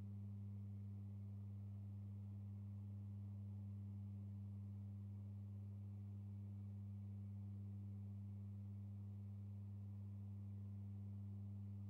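Quiet, steady low drone of two pure tones an octave apart, held unchanged: the closing sound of a music track.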